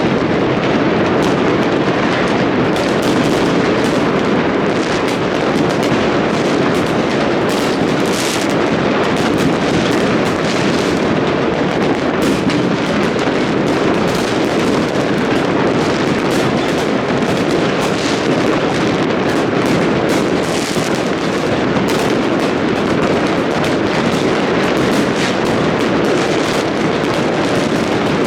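Dense New Year fireworks barrage: a continuous rattle of many overlapping bangs and crackles with no let-up.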